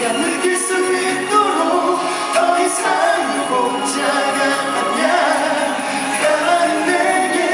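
Korean pop ballad music with sung vocal lines.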